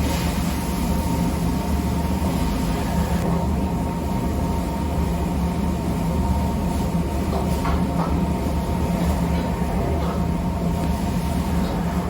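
A steady low mechanical hum with a few held tones, unchanging throughout.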